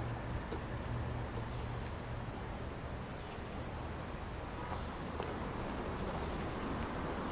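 Steady low background noise with a low hum and a few faint ticks.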